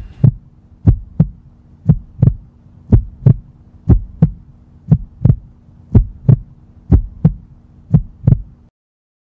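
Heartbeat sound effect: nine double 'lub-dub' thumps, about one a second, over a steady low hum, all cutting off suddenly near the end.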